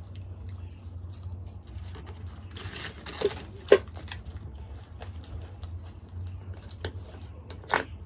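Close-miked eating sounds: tearing and chewing of paratha, with a few sharp crunchy snaps. The loudest snap, about three and a half seconds in, is a fresh green chilli being bitten. A low steady hum lies underneath.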